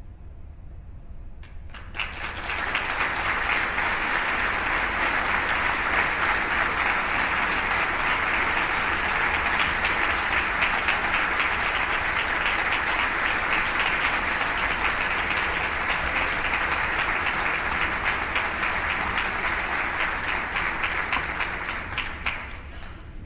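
Concert audience applauding, starting abruptly about two seconds in, holding steady, and dying away near the end.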